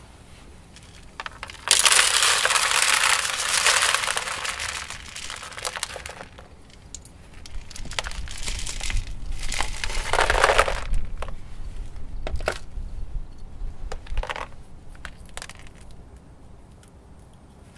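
Small gravel potting mix pouring out of a plastic pot and rattling onto a plastic lid, in a long loud spill followed by a second spill a few seconds later. After that come scattered clicks as single stones are shaken and picked from the roots and dropped onto the lid.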